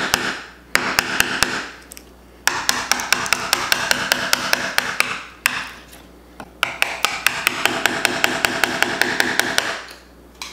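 Wood chisel driven into wood by quick hammer blows, in three runs of rapid strikes about five a second with short pauses between, paring out a shallow notch.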